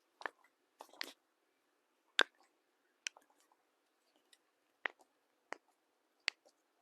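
A string of short, sharp cracks and clicks from joints being manipulated in a chiropractic adjustment, about eight in all at uneven spacing, the loudest about two seconds in.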